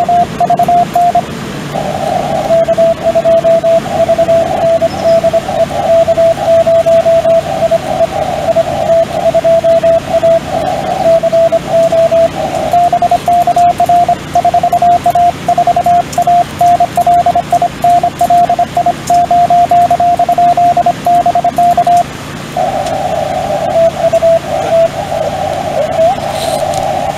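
Morse code (CW) from an amateur radio transceiver: one steady mid-pitched tone keyed on and off in rapid dots and dashes over radio static. Around two seconds in, and again from about 22 seconds on, several tones jumble together.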